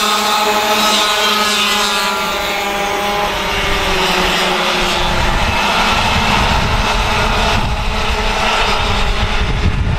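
Racing kart engines running hard: a high, pitched engine whine in the first few seconds, giving way to a heavy rumble from about four seconds in.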